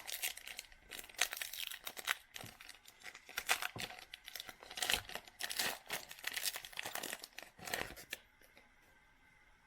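A trading-card pack's wrapper being torn open and crinkled by hand, with irregular crackling that stops about eight seconds in.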